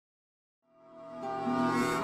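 Silence, then background music fading in a little before the middle, with several held notes building to a steady level.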